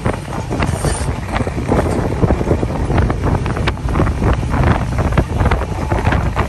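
Wind buffeting the microphone at an open train window, over the steady low rumble of the train running, with irregular knocks and clatter from the wheels on the track.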